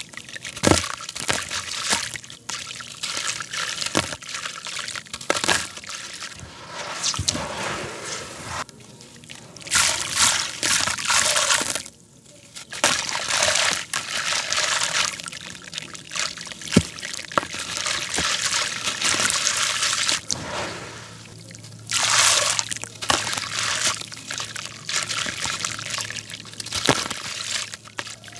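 Water-soaked gritty concrete chunks squeezed and crumbled by hand over a tub of water. Grit crunches and crackles with small sharp clicks, and muddy water trickles and drips back into the tub in repeated bursts with short pauses.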